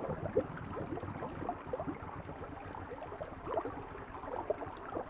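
River water trickling and bubbling, with many small, irregular bubbling blips over a steady rush.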